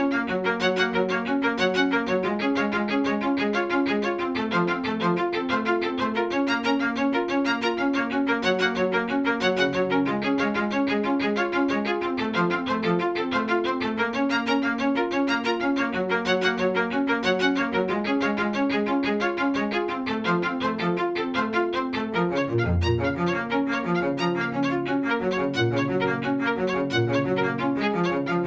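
Background music led by bowed strings such as violin, with notes moving quickly in a steady, continuous line.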